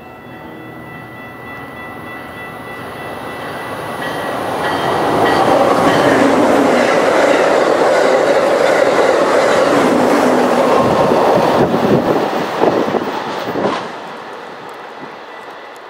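A train passing close by: its sound builds over the first few seconds, runs loud for about six seconds, then falls away sharply near the end.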